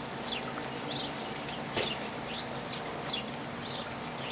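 Released honeybees buzzing in a steady hum around the hive, while a bird repeats short falling chirps a few times a second. A single sharp click comes a little under two seconds in.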